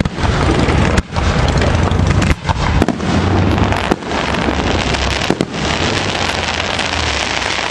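Fireworks display going off in a loud, dense, unbroken barrage of bursts and crackle with a deep rumble underneath, dipping briefly a few times.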